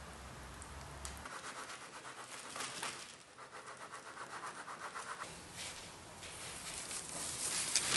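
A paper-lined loaf soap mold full of freshly poured soap batter being shaken rapidly, giving a fast, even rattle for about four seconds; the shaking settles the batter and frees trapped air bubbles. Irregular rustling follows, loudest near the end.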